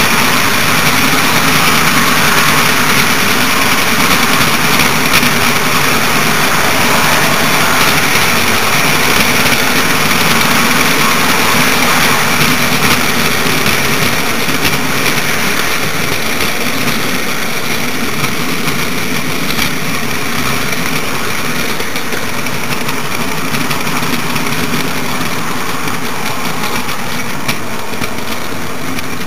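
HO-scale model train running on the layout track, heard from on board: a steady whir of the diesel model's electric motor and gearing with the wheels rolling on the rails, easing off slightly in level over the second half.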